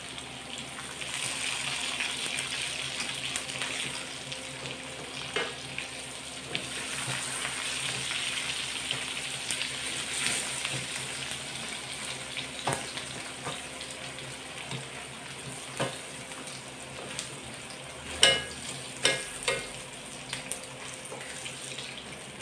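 Pork belly slices sizzling and frying in their own rendered fat in a metal wok, a steady hiss. Metal tongs knock against the wok now and then as slices are turned and lifted out, with a loud ringing clank about eighteen seconds in and two more just after.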